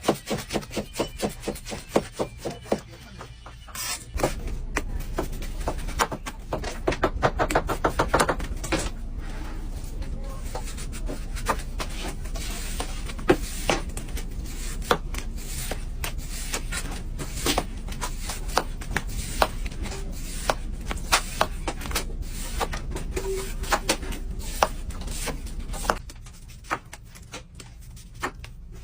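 A long series of sharp knocks and clicks with some rubbing. They come in fast, even runs near the start and again about six to nine seconds in, then more scattered, and they thin out and quieten near the end.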